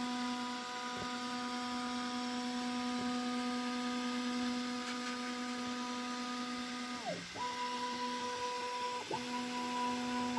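Snapmaker A350T 3D printer's stepper motors whining at one steady pitch as the toolhead lifts away from the finished print. The whine drops off about seven seconds in, then starts again at the same pitch, with a brief break near nine seconds, as the bed moves forward.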